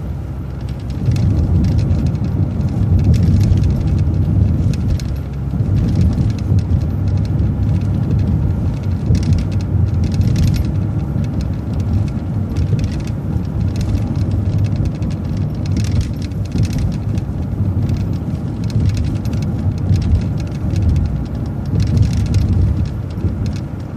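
Transit bus driving along the road, heard from on board: a steady low engine and road rumble with scattered light ticks above it.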